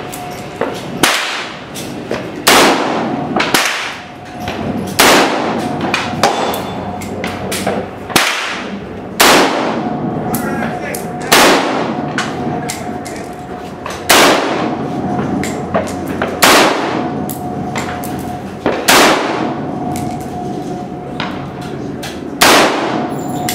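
Vepr AK-pattern rifle in 5.45x39 firing slow, single semi-automatic shots, a dozen or so, about one every one to two seconds, each with a short echoing tail.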